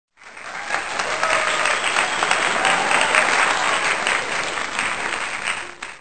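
Applause: many hands clapping, fading in at the start and fading out near the end.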